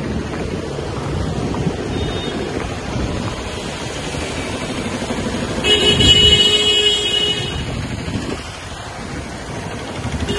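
Street traffic noise with a vehicle horn honking for nearly two seconds just past the middle, the loudest sound, and a brief high beep about two seconds in.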